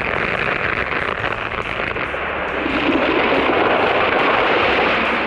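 A tree coming down: a loud, steady rushing noise that swells louder about halfway through and fades out at the end.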